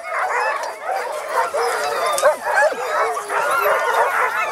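A yard of chained sled dogs barking together, many calls overlapping thickly without a break.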